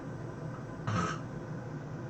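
Steady low room hum with one short, sharp sound about a second in.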